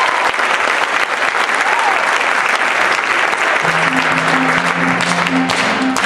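An audience applauds with steady clapping throughout. About three and a half seconds in, low marimba notes start a repeated pattern under the clapping.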